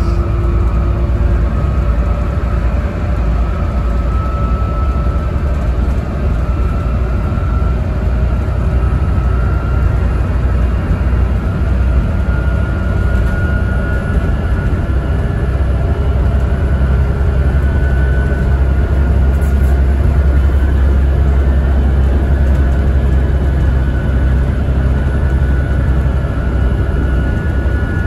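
Volvo B7TL double-decker bus heard from inside while under way: its six-cylinder diesel engine drones steadily over road rumble, with a thin whine that climbs slowly in pitch.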